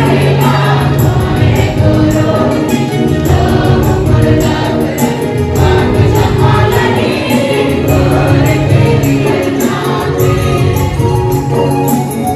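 Church choir singing a hymn over instrumental accompaniment, with a regular beat.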